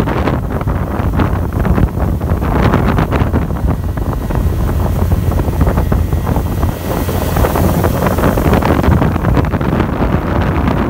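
Outboard motor of a small open boat running steadily at speed, with wind buffeting the microphone in gusts and water rushing past the hull.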